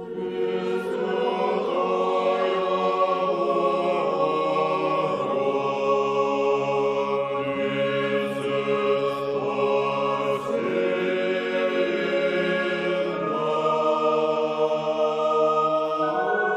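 A choir singing unaccompanied, several voices in slow held chords that change every few seconds.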